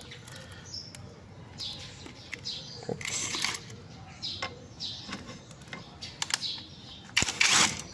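Small metal clicks, taps and scrapes as a long bolt is worked into a scooter's swing-arm mount, with a louder scraping rattle near the end.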